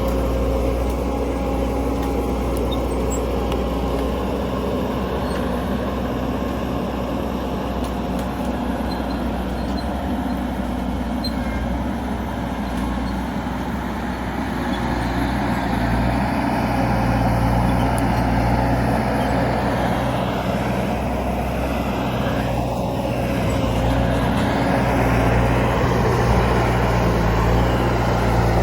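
Skid steer's engine running steadily under load while pulling a stuck truck out, growing louder from about halfway through.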